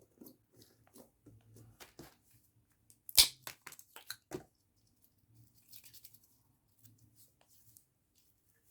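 Plastic slime-kit containers and packets being handled: scattered clicks and rustles, with one sharp snap about three seconds in followed by a few quicker clicks.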